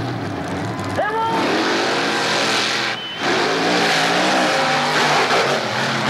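Two monster trucks' engines launching at full throttle about a second in, revving up sharply, then running hard as the trucks race side by side; the loud engine noise dips briefly near the middle, then carries on.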